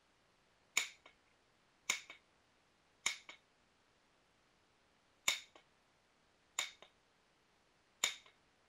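Knapping blows on a piece of Rainy Buttes stone: six sharp clicks at irregular intervals of one to two seconds, each followed a moment later by a fainter click.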